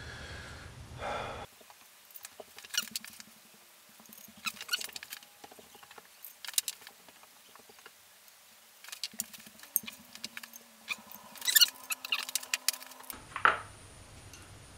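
Light metallic clicks and scrapes of a camshaft and its bearing caps being handled on a BMW M54B30 aluminium cylinder head during teardown, scattered at first and busiest in the last few seconds, with a sharper clink near the end.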